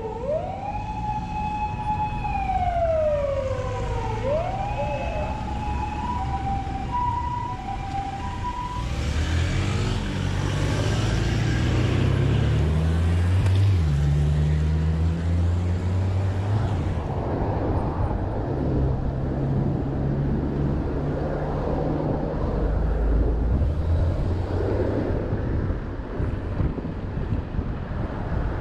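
Emergency vehicle siren passing: a wail sweeping up and down, with a steady two-note hi-lo tone alongside, fading out after about nine seconds. After it, road traffic, with the low drone of heavy vehicle engines.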